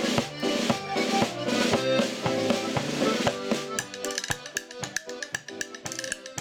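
Irish traditional dance tune played on accordions and banjo, with crisp, evenly spaced note attacks giving a steady beat. About four seconds in the fuller sound thins, leaving sharper, clicky picked notes.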